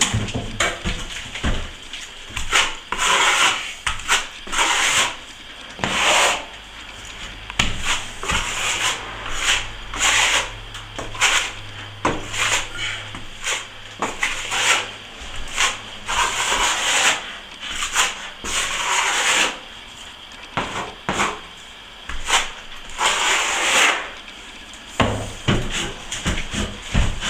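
Steel plastering trowel scraping and polishing across a wet plaster finish coat in repeated sweeping strokes, roughly one a second.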